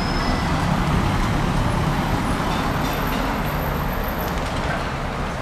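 Town street noise: a steady rumble of road traffic, a little louder about a second in and slowly easing off.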